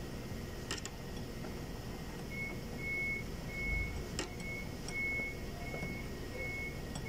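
Electronic warning beeper sounding a steady high beep about one and a half times a second, starting about two seconds in. A few sharp metal clicks come from tools working on the wiper linkage inside the cowl.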